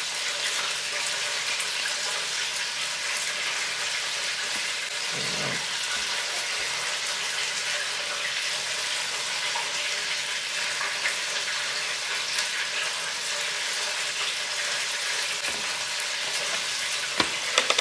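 Chicken frying in hot oil, a steady sizzle, with a few light clicks near the end.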